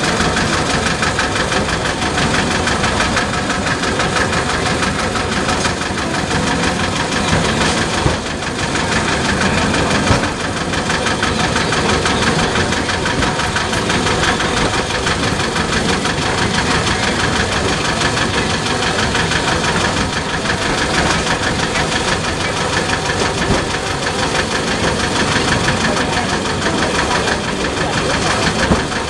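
Engine of a small park train running steadily, heard from aboard the open carriage as it rides along.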